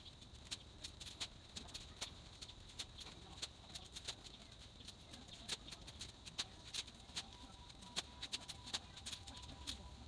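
Sped-up sound of a shovel digging and turning garden soil: a rapid, irregular patter of sharp clicks and scrapes.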